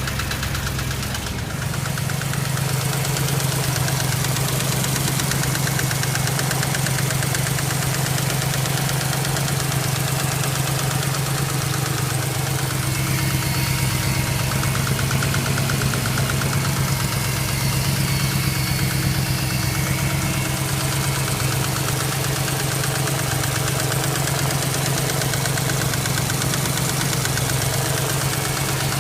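BMW X5 engine idling steadily with a fast, regular knock over its running note, a knock whose cause is unknown to the owner.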